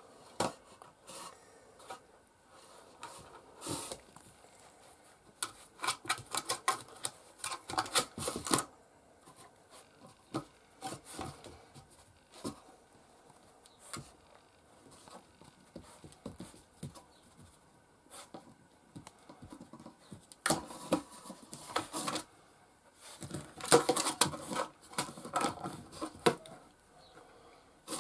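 Caucasian shepherd puppy chewing and pushing a hard white toy about on a linoleum floor: irregular clicks, taps and scraping, with busy flurries about a fifth of the way in and again near the end.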